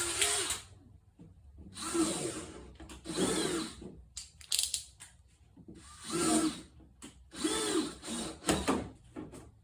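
Power drill driving a honing bit to enlarge the fuel-line hole in a diesel heater's fuel tank, run in about half a dozen short bursts, each spinning up and winding down.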